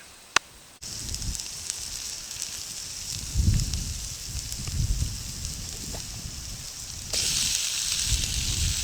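Food sizzling in a pan over a wood-burning Forfar stove, with wind gusting on the microphone. There is a single sharp click near the start, and the sizzle gets louder about seven seconds in.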